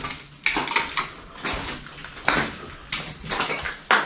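Footsteps crunching over debris on a floor: about five irregular steps roughly a second apart.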